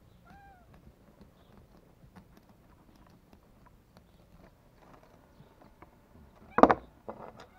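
Faint clicks and scrapes of a knife working on a chipboard cutting board as a bonito's fins are trimmed, with a short cat meow just after the start. About six and a half seconds in comes a loud thump on the board, followed by a few smaller knocks.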